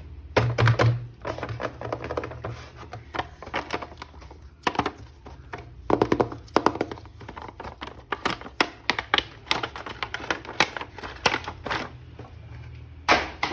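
Hands handling and unpacking a plastic action figure: a run of irregular clicks, taps and knocks of plastic.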